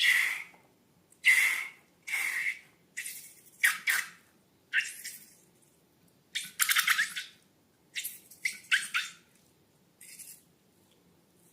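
Slime and balloons being handled: about ten short hissing, squelching noises, a second or so apart, some with a fine crackle.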